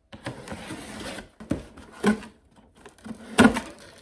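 Cardboard shipping box being opened: the packing tape slit with a rasping scrape for about a second, then the flaps pulled back and the boxed product inside handled, with three knocks of cardboard, the loudest near the end.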